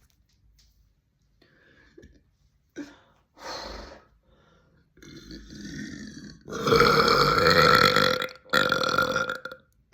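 A woman burping deeply: a short burp about three and a half seconds in, then a long, loud burp from about six and a half seconds in that breaks off briefly before a second loud burp near the end.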